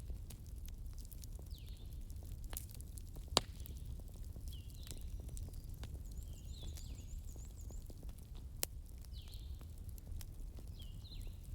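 Wood fire in a fireplace burning with a low steady rumble and scattered sharp crackles and pops, two of them louder. A short chirp repeats about every second and a half throughout.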